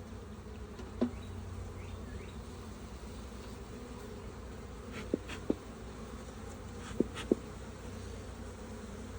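Honeybee colony buzzing steadily around a freshly opened hive, stirred up by having its top pried off. A handful of short, sharp clicks sound over it about a second in, twice near the middle and twice later on.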